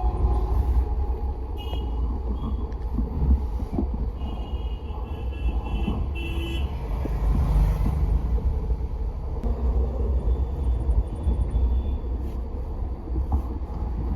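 Maruti Suzuki car engine running with a steady low rumble; the owner reports the engine is misfiring. Short horn toots sound about two seconds in and again around four to six and a half seconds in.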